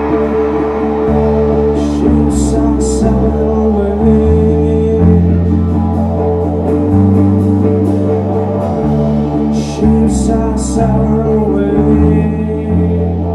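Live rock band playing: electric guitar, bass guitar and drums, with the bass moving between long low notes. Cymbals crash in two short clusters, about two seconds in and again about ten seconds in.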